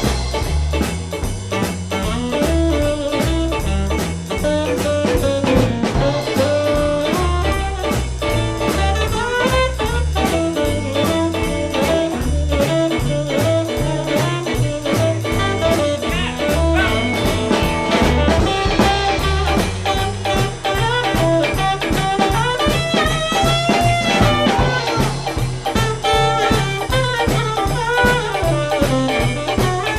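Upbeat swing-style rock and roll music with a drum kit keeping a steady, driving beat under an instrumental lead line.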